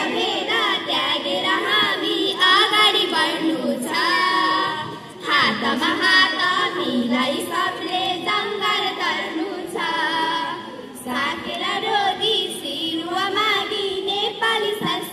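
Group of female voices singing a song together, in phrases with short breaks about five and eleven seconds in.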